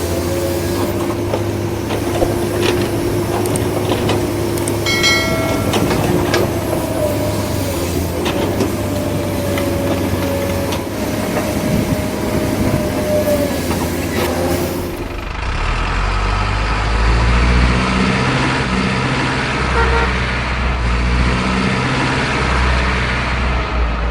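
Heavy truck engine sound running steadily, with a short horn toot about five seconds in. About two-thirds of the way through it cuts abruptly to a deeper, lower rumble.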